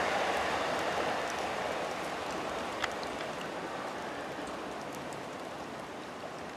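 Class 360 electric multiple unit running away along the track, its wheel-on-rail noise a steady rush that fades as it recedes, with one sharp click about three seconds in.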